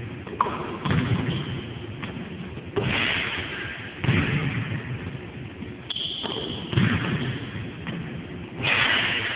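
Basketball thudding on a hard gym floor during shooting practice: about five heavy, echoing thuds a second or two apart.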